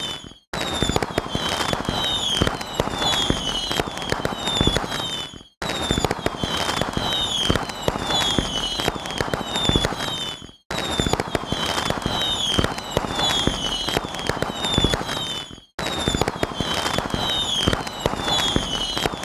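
A short sound effect of dense crackling and popping with many quick falling whistles, looped: the same five-second stretch repeats about four times, each time broken by a brief cut to silence.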